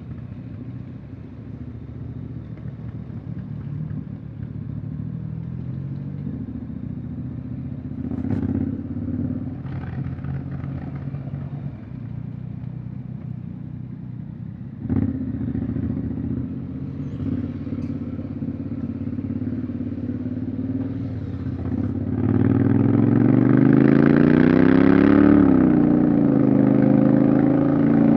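Honda X-ADV 750's parallel-twin engine running under way, with a sharp knock about fifteen seconds in. Near the end it grows louder as the bike accelerates, its pitch rising and then dipping as the throttle eases.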